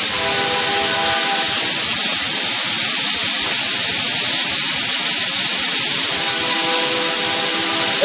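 Loud, steady high-pitched hiss with a whistle whose pitch creeps slowly upward: a truck's exhaust forcing its way out past a tennis ball and rag stuffed into the tailpipe.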